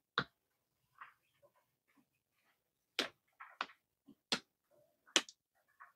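Sharp clicks and knocks, about five of them, from hands working on a car battery before its water level is checked.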